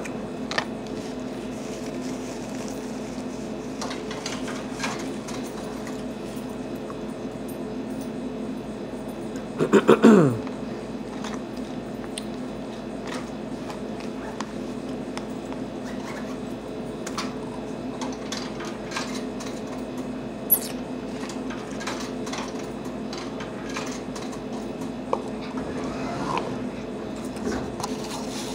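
Eating sounds: a metal fork clicking and scraping against a plastic food container and chewing, over a steady hum in the room. About ten seconds in, a short loud sound drops steeply in pitch.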